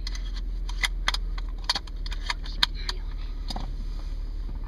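A car engine idling, heard from inside the cabin as a steady low hum, with scattered light clicks and knocks over it.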